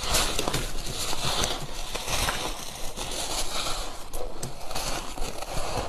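Close-miked crunching of frosty freezer ice being bitten and chewed, a dense run of crisp crackles without a break.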